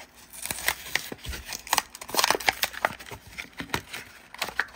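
Clear plastic blister of a Hot Wheels die-cast car's card pack being pried and torn off its cardboard backing: a rapid, irregular run of sharp crackles and pops.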